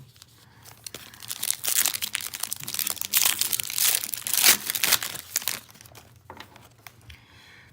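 A foil trading-card pack wrapper crinkling and tearing as it is opened by hand. The rustle is loud and dense, starting about a second in and dying down a little before the end.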